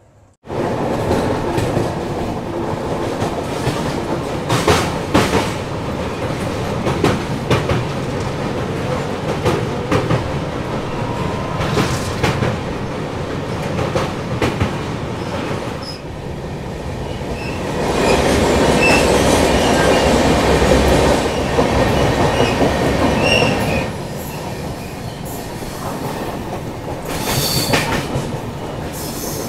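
Express train's coaches running along the track, heard from the open door: a steady rumble and rush with the wheels clacking over rail joints now and then. It gets louder for a few seconds in the second half.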